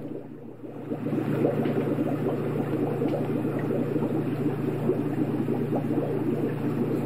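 Aquarium water bubbling and burbling steadily over a low hum, the sound of a fish tank's air pump or filter running. It dips briefly near the start, then carries on evenly.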